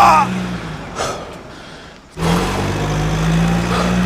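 A low, steady vehicle engine drone fades out about a second in and cuts back in abruptly a little past halfway, with short high voice-like cries at the start and near the end.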